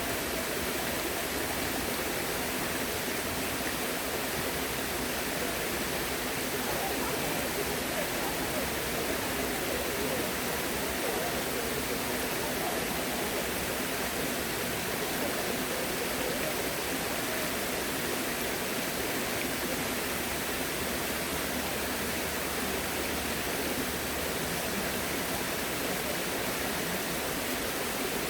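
Steady rush of flowing water, unchanging throughout.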